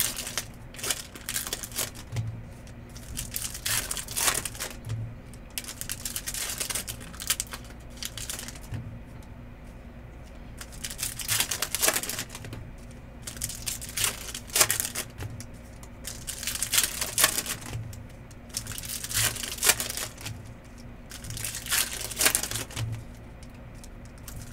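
Trading-card pack wrappers being torn open and crinkled, and cards shuffled through by hand, in repeated bursts every two to three seconds.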